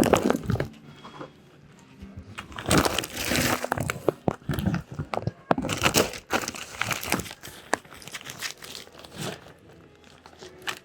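Irregular rustling and crinkling with scattered clicks and knocks.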